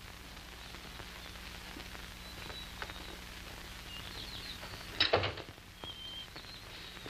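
Steady low soundtrack hum with faint outdoor ambience and a few short, high bird chirps. About five seconds in, a single sharp clack of a car door being opened.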